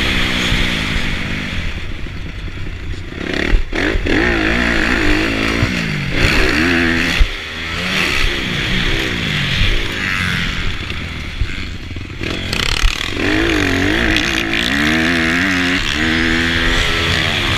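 Honda CRF250 four-stroke motocross engine, heard from the rider's helmet camera, revving up and dropping back again and again as it is ridden hard around a dirt track. Wind rushes over the microphone, and a few sharp knocks cut through.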